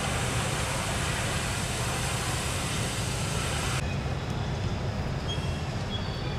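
Steady outdoor background noise: a constant low rumble with hiss above it. The hiss drops away suddenly about four seconds in, and a few faint short high chirps come near the end.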